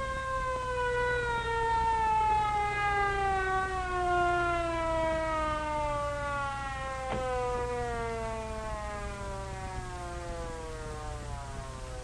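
Ambulance siren winding down in one long, slow fall in pitch as the vehicle arrives, fading toward the end.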